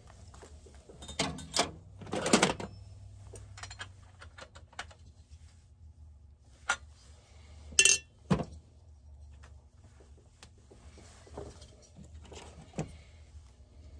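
Short metallic clinks and knocks of chainsaw parts being handled and fitted together during hand assembly of a Holzfforma 372XP chainsaw. The clatters are scattered and irregular, loudest about two seconds in and again near eight seconds.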